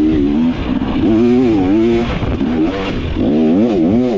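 Two-stroke single-cylinder engine of a KTM 300XC dirt bike being ridden, its revs rising and falling repeatedly as the throttle is worked.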